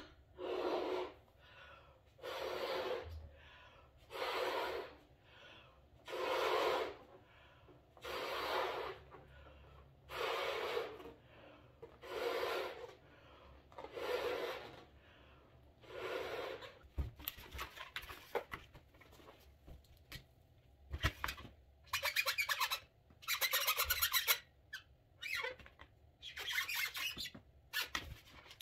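A latex balloon is blown up by mouth in about nine long puffs of breath, roughly two seconds apart. After that the inflated balloon squeaks and rubs under the hands as it is handled.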